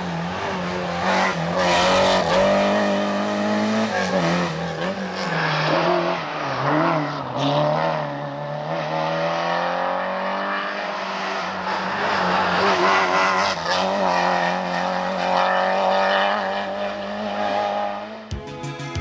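Peugeot 205 rally car's four-cylinder engine revving hard on a stage, its pitch rising and falling as the driver works through the gears. Music with a steady beat takes over near the end.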